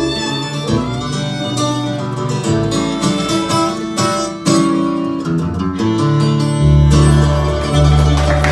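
Live bluegrass band playing an instrumental passage with no singing: fiddle, acoustic guitar, mandolin, banjo and upright bass. In the last couple of seconds the band goes into louder, longer held notes.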